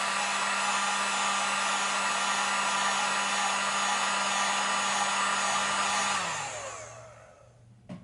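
Heat gun blowing steadily with a constant motor hum, then switched off about six seconds in and winding down, its pitch falling. It is heating the iPhone X's front glass to loosen the screen adhesive.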